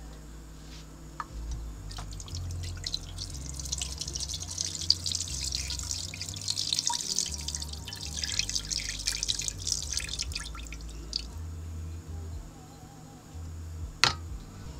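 Chicken broth poured from a can into a Dutch oven, splashing onto the bottom beneath a wire rack. The splashing starts about two seconds in and stops around eleven seconds. A single sharp click comes near the end.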